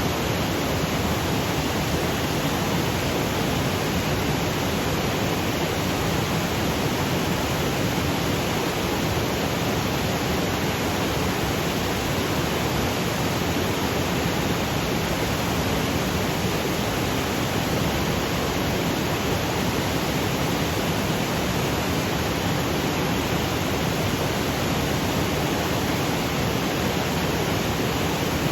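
Waterfall cascading over granite boulders: a steady, unbroken rush of falling water.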